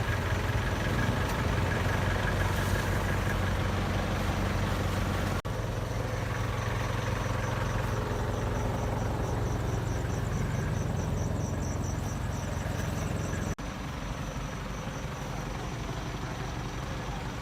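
Steady low hum of a running vehicle engine. The sound cuts abruptly twice, at about five seconds and about thirteen seconds in, as the footage changes.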